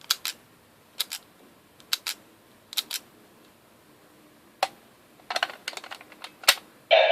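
Sharp hard-plastic clicks from handling a Kyoryuger Zyudenchi battery toy and its Gabutyra de Carnival toy. The clicks come in pairs about once a second, then as a quicker irregular run. A louder sustained sound from the toy starts right at the end.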